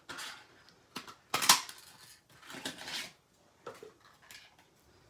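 A hand-held paper punch pressed down through cardstock, with one sharp clack about a second and a half in, followed by several softer clicks and paper rustles as the punch and the punched-out piece are handled.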